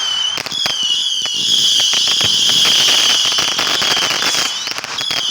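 A lit firework gives off a high, wavering whistle with rapid crackling pops throughout. The whistle breaks off near the end and starts again.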